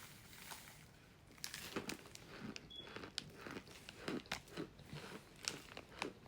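A person biting and chewing crunchy chunks of pressed cornstarch, with irregular crisp crunches every half second or so.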